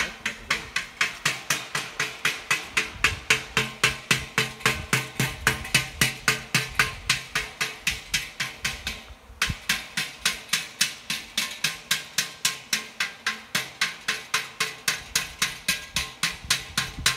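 Tanging: metal beaten rapidly and evenly, about four to five ringing strikes a second, with a brief pause about nine seconds in. It is done to make a swarm of honeybees settle close by.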